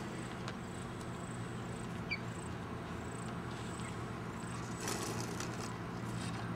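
Steady low engine hum running in the background, with a brief rush of noise about five seconds in.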